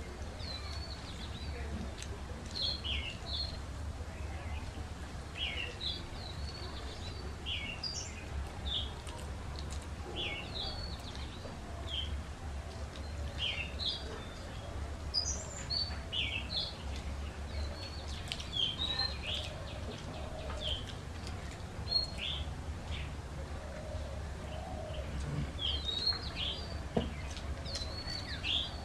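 Small birds chirping, many short high calls scattered throughout, over a steady low hum.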